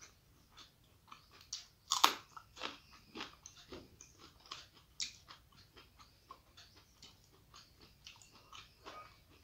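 Close-miked chewing of rice with crisp fried onion greens (peyajkoli bhaja): a string of short, crisp crunches, the loudest about two seconds in.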